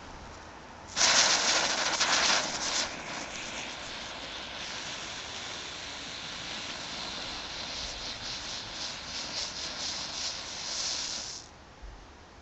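Comet Silver Spinner, a Class 1 ground-spinner firework, igniting about a second in with a sudden loud rush of hissing. It then settles into a steady, wavering hiss of spraying sparks as it burns on the pavement, and cuts off shortly before the end.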